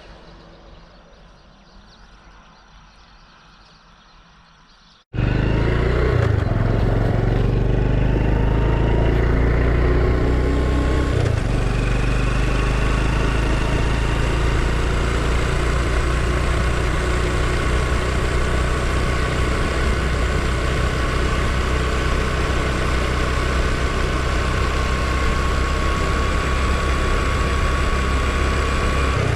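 Honda Super Cub's small single-cylinder four-stroke engine running steadily under way, with road and wind noise. It comes in suddenly and loud about five seconds in, after a few seconds of faint sound.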